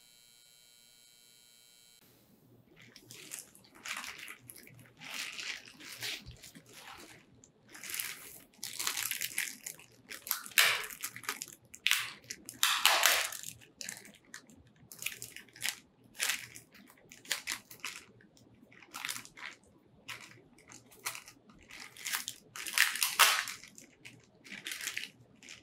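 Clear plastic bag crinkling and rustling in irregular bursts as hands handle and open it, starting about two seconds in after near silence.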